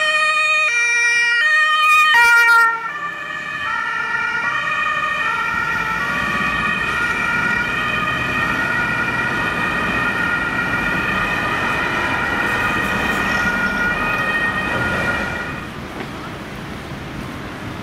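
Ambulance's two-tone German siren (Martinshorn) alternating between a high and a low note about every three-quarters of a second, loud at first. After a sudden drop about three seconds in it continues more distantly over traffic, the two notes running together, and fades about fifteen seconds in.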